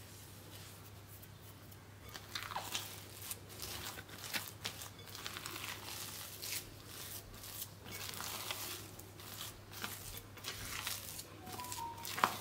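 Silicone spatula scraping and folding a thick urad dal paste and dry flour in a glass bowl, in irregular crunchy strokes that begin about two seconds in. A faint low hum runs underneath.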